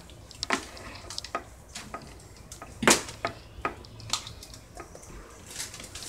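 Irregular light clicks and taps, a few every second, with one louder knock about three seconds in, over a low steady hum.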